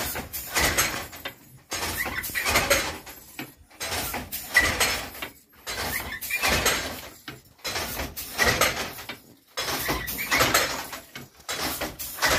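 Jacquard silk handloom being worked: a repeated wooden clatter and slide about once a second as the shuttle is thrown and the batten beats the weft into the cloth.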